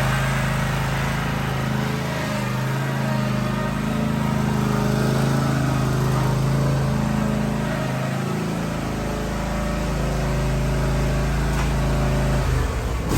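Cub Cadet ZT1 50 zero-turn mower engine running steadily, back in running order after a no-start from running out of gas; the engine note changes near the end.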